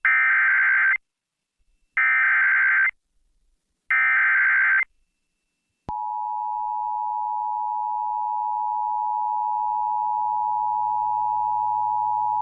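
Emergency Alert System broadcast of a Severe Thunderstorm Warning: the SAME digital header, three one-second bursts of warbling data tones about a second apart, then a click and the steady two-tone attention signal starting about six seconds in. The header carries the coded alert, and the attention signal announces the spoken warning that follows.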